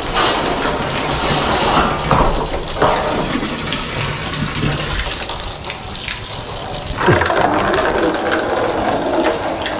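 Water draining from a cut pipe of a pressurized solar water heater tank, running in a steady stream into a plastic bucket as the tank is emptied for replacement.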